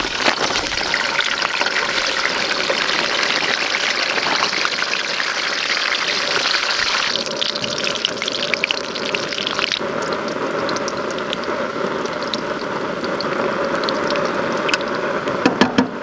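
Pre-made fries sizzling steadily in hot canola oil in a pan, with scattered small pops and crackles.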